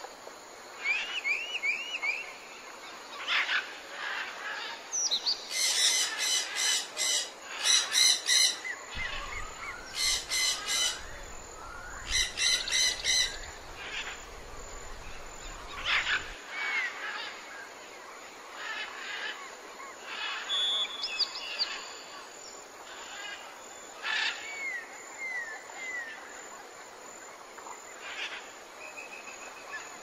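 Several birds calling and chirping, overlapping short whistles, slurred notes and chirps, with a few bursts of fast repeated notes in the first half.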